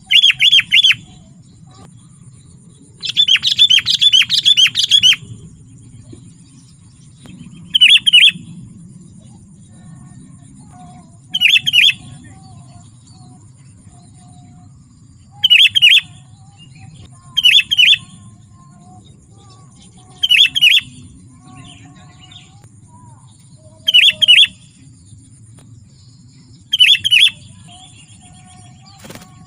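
Sooty-headed bulbul (kutilang) giving short chirping call phrases every three or four seconds, with one longer run of rapid notes a few seconds in. A low steady hum runs underneath.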